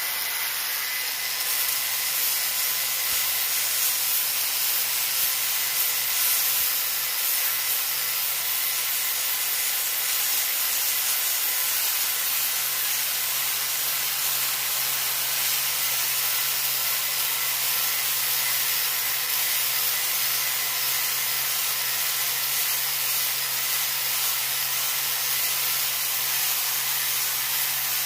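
Angle grinder with a flap disc sanding the rough cast surface of a new Lodge cast iron skillet: a steady grinding hiss over the grinder motor's hum.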